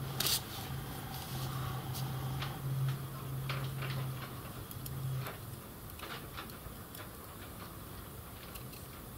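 Light metallic clicks and taps of small steel parts being fitted together by hand, with a small hand tool worked into the fixing nut of a miniature lathe's compound slide; one sharper click comes just after the start. A low steady hum runs under the first five seconds, then stops.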